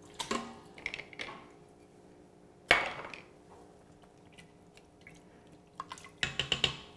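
Handling in a stainless-steel pressure-cooker pot of stock and rice: soft wet sounds as chicken goes in, one sharp knock against the pot about three seconds in, and a quick run of utensil clinks and scrapes on the pot as it is stirred near the end.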